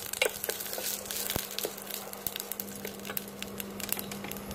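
Cumin, mustard seeds, dried red chilli, curry leaves and garlic sizzling in hot oil in a stainless steel pan, with scattered crackles and pops, while a wooden spatula stirs them. A steady low hum runs underneath.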